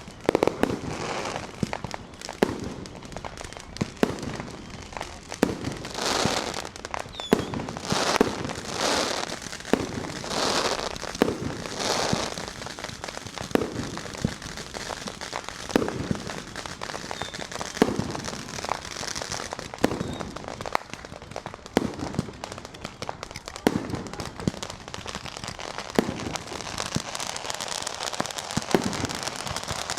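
Fireworks and firecrackers going off all around: sharp bangs every second or so over continuous crackling, with louder stretches of hiss and crackle between about six and twelve seconds in.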